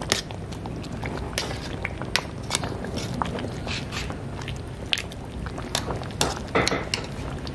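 Thick porridge boiling in an aluminium pot and stirred with a metal ladle: irregular pops, clicks and scrapes of the ladle against the pot.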